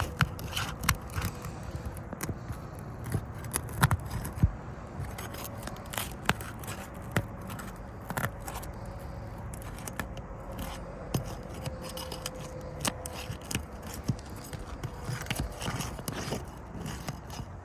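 A metal roof snake worked under three-tab asphalt shingles, scraping with many irregular clicks and ticks as it unseals them.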